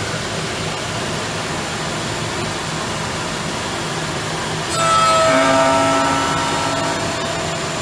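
Intorex CNC lathe's cutter machining a Victorian ash blank into a square tapered leg: a steady machine whir, then about five seconds in a louder cutting pass with a whine that lasts about two seconds.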